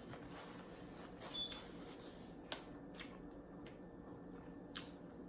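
Quiet room with a steady low hum and a few faint, sharp clicks and small handling noises scattered through it.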